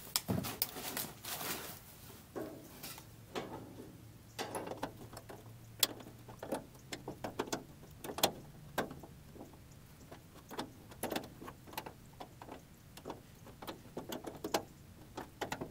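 Irregular light clicks and small metallic knocks, some in quick little clusters, from hand tools and fittings as the hood strut, wiring clips and hinge bolts of a Triumph Spitfire Mk3 are worked loose. There is shuffling movement in the first couple of seconds.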